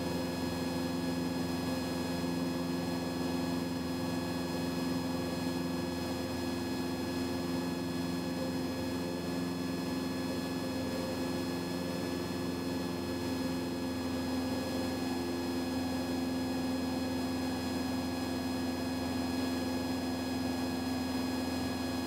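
Cessna 172's piston engine and propeller running steadily in cruise, heard inside the cabin as an even drone with several constant tones.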